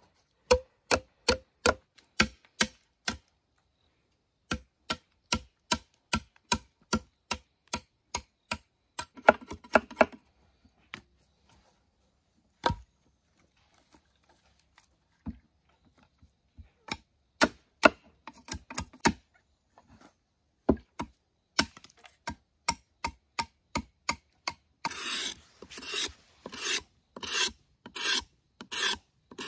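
Hand tool working bamboo in repeated strokes: runs of sharp, evenly spaced knocks about two to three a second, broken by short pauses. In the last few seconds they turn into longer rasping strokes, about two a second.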